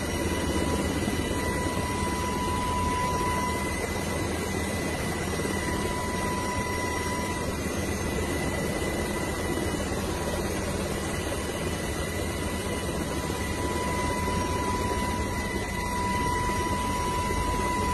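Helicopter heard from inside the cabin: a steady rumble of rotor and engine noise with a steady high whine over it.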